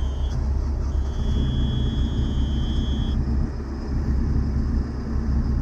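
Heavy diesel engine running steadily at idle, a constant low rumble, with a faint high steady whine that drops out twice.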